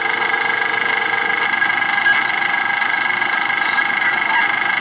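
Steady hum and hiss of a parked vehicle idling, heard from inside the cabin, with a faint steady tone in the first second and a half.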